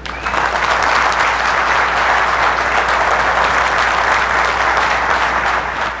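Audience applause, many people clapping together. It starts a moment in and holds steady.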